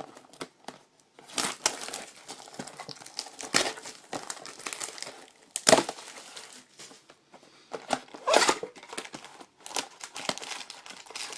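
Plastic wrapping on a sealed box of trading-card packs crinkling and tearing as it is opened by hand, in irregular bursts with several louder crunches.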